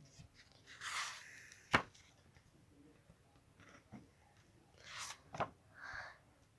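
Paper pages of a book being turned by hand: soft swishing and rustling about a second in and again around five to six seconds, each with a sharp little tick as a page flips over.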